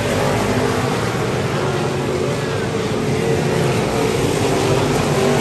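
Several race car engines running together on the track: a steady, dense blend of engine noise with no single car passing clearly.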